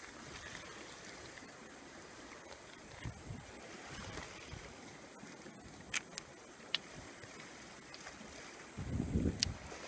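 Steady wash of the sea with wind on the microphone, broken by a few sharp clicks in the middle and a short burst of low wind rumble near the end.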